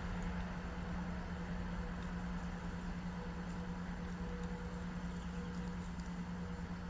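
A steady low hum over a low rumble, with faint light ticks scattered through it.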